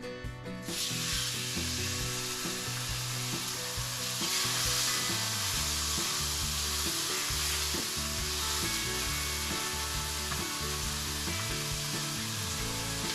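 Food sizzling in a hot frying pan. The sizzle starts suddenly about a second in as the food goes into the pan, then runs on steadily.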